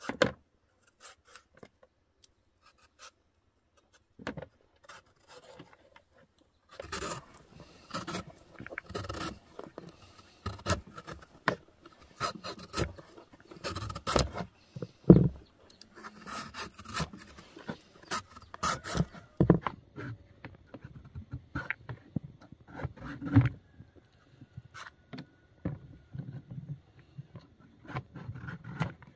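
Vegetable peeler shaving thin strips off a piece of fresh coconut meat: short, irregular scraping strokes, sparse at first, then coming quickly one after another from about seven seconds in.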